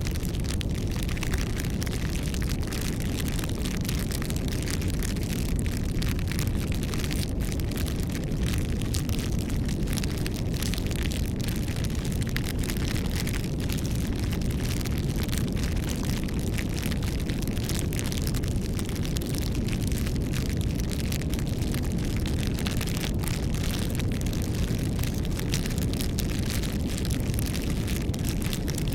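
Wood campfire burning: a steady low rush of flame, with many irregular small crackles and pops from the burning wood.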